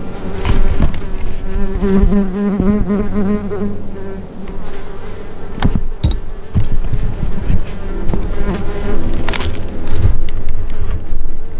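A flying insect, a fly or bee, buzzing loudly close by, its pitch wavering as it moves, with a few sharp clicks or knocks over it.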